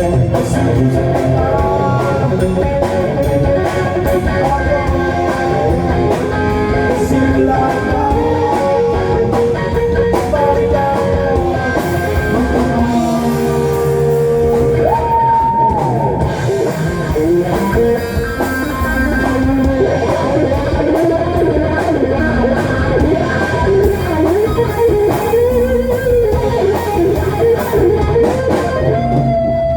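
Electric guitar playing the lead melody of a Filipino rock song in F minor, with string bends and vibrato, over a rock accompaniment, played through a DIY amplifier driving Infinity REF-9633ix speakers. It settles on a long held note near the end.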